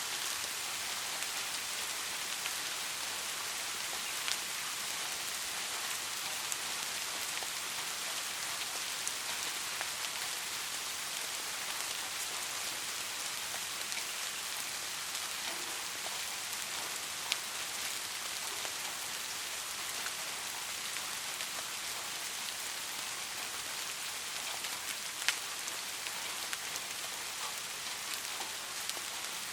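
Steady rainfall: an even hiss of many raindrops, with a few sharper single drop taps standing out, most clearly about 17 and 25 seconds in.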